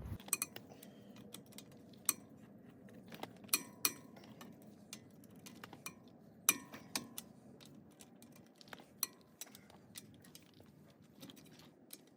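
Irregular metal clinks and knocks from tools being handled, a few of them ringing briefly.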